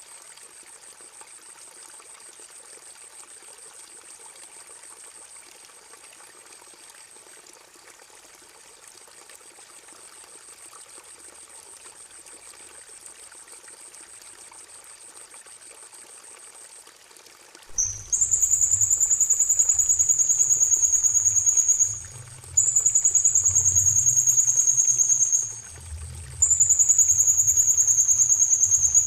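Trickling water with a faint, thin, high trill above it; about two-thirds of the way in, a loud, high, buzzing songbird trill starts, repeated three times, each about three and a half seconds long and dropping slightly in pitch, with short pauses between.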